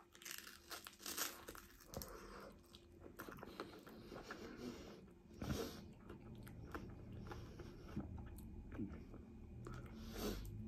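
Faint, irregular crunching of a prawn cracker being bitten and chewed, with louder crunches about a second in and again about five and a half seconds in.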